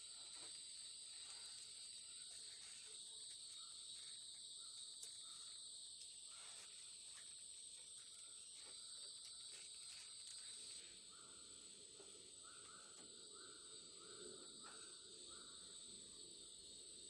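Faint night chorus of crickets and other insects: a steady high-pitched trill that eases a little about two-thirds of the way in. From then on, short chirping calls repeat about twice a second.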